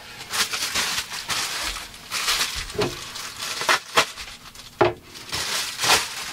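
Cardboard box being unpacked and rummaged through: rustling, crinkling packaging, with a few sharp knocks and taps along the way.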